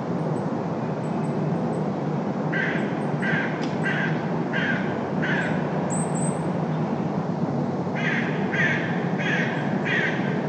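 A crow cawing in two runs, five caws about two-thirds of a second apart and then, after a pause, four more, over a steady drone of city traffic.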